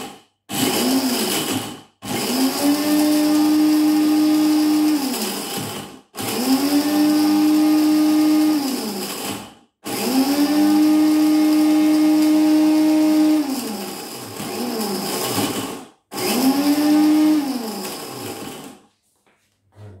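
Electric blender with a small chopping cup running in about five pulses of a few seconds each, the motor spinning up to speed, holding, and winding down as each press is let go, chopping frozen peas.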